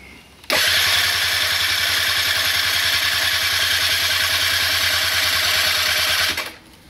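Luxxon King scooter engine being cranked over by its electric starter for about six seconds during a compression test, with a compression gauge in place of the spark plug. It turns over with an even, steady pulse and does not fire.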